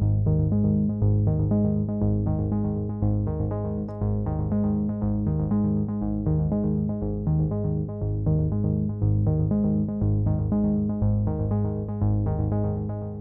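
Background music: synthesizer with a quick, even run of repeated keyboard notes over a low bass, fading out near the end.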